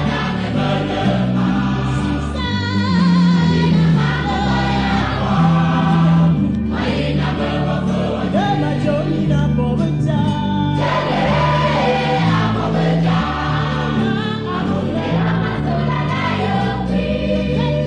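Gospel choir music: many voices singing together over a steady bass line.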